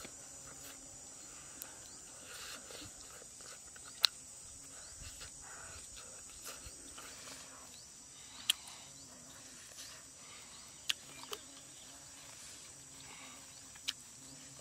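Insects droning steadily at a high pitch, with a few sharp clicks on top; the loudest click comes about four seconds in and another about halfway.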